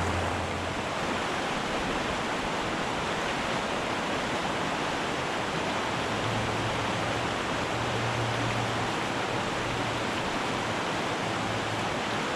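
Steady rush of a small mountain creek running over rocks. A faint low hum joins in about halfway through.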